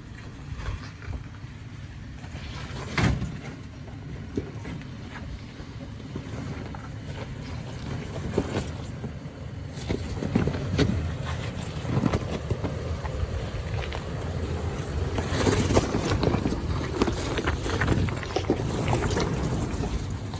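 2018 Toyota 4Runner TRD Off-Road crawling a rocky trail: a steady low engine rumble with frequent knocks and crunches of tyres and body on rock, busier in the second half.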